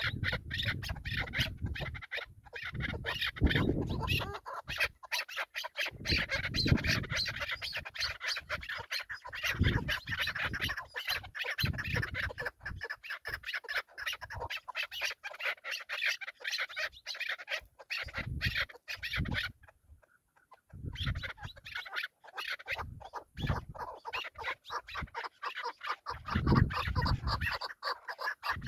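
Chukar partridges calling, a fast, continuous run of short clucking chuk notes that pauses briefly a little past two-thirds of the way through. Several stretches of low rumbling come and go beneath the calls.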